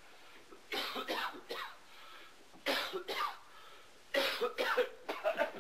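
A man coughing and hacking in three rough bouts, spitting as he coughs.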